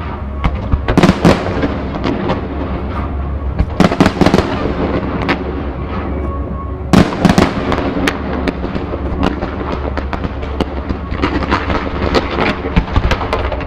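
Fireworks display going off in rapid volleys of sharp bangs and crackles, with the heaviest clusters of bursts about a second in, about four seconds in, and about seven seconds in.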